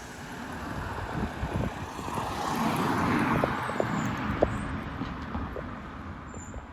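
Vauxhall Astra 1.7 diesel car driving past, its noise swelling to a peak about halfway through and then fading, with a few light clicks.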